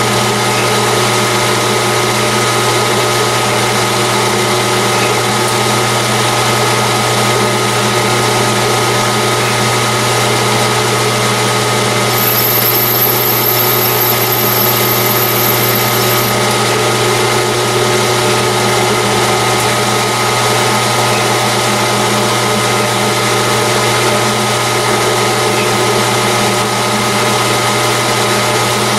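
Metal lathe running steadily while a tool cuts internal threads in a titanium tube: a constant motor and gear hum, with a thin high whistle for about four seconds midway.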